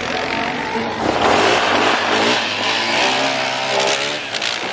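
Vehicle engine revving hard under load, its pitch climbing and falling, with a loud rushing noise from about a second in.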